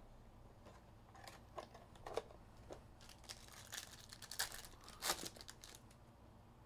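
Foil wrapper of a Panini Crown Royale card pack crinkling and tearing as it is ripped open by hand. Short crackles come thicker about halfway through, with the loudest about five seconds in.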